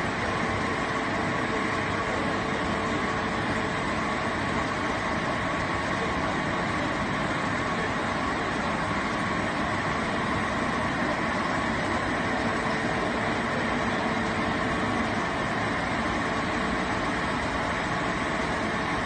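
King Hsing blown film extrusion line running and winding plastic film onto a roll: a steady, unchanging machine hum and hiss with a few faint steady whining tones.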